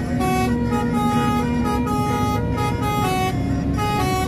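A tourist bus's melodic multi-note 'basuri' horn playing a quick tune of short stepped notes, about three a second, over the low rumble of the bus engine.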